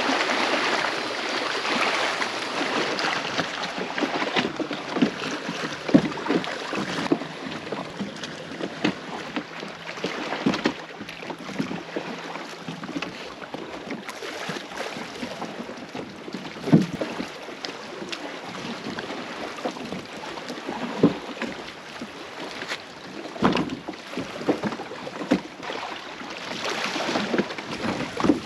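Paddle strokes in lake water: irregular splashes and drips over a steady watery hiss.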